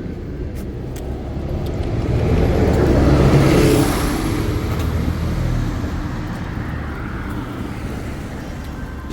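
A car passing by on the road, its tyre and engine noise rising to a peak about three to four seconds in and then fading away.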